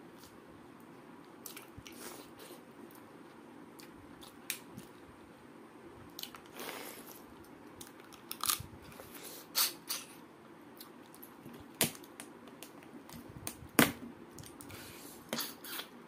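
Close-mic eating sounds of a person chewing rice and biting and sucking on pieces of crab curry by hand. Scattered sharp crunches and wet mouth smacks come every second or two, the loudest about 14 seconds in.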